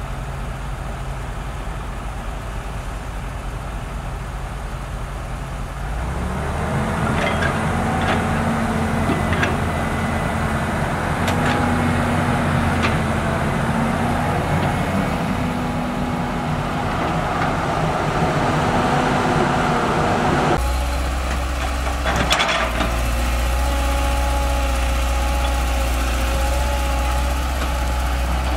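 Volvo EC210BLC excavator's six-cylinder diesel engine running, rising under load about six seconds in, with several sharp metallic clanks as the machine works. A little past two-thirds of the way through, the sound switches abruptly to a deeper steady engine drone, with one more clank soon after.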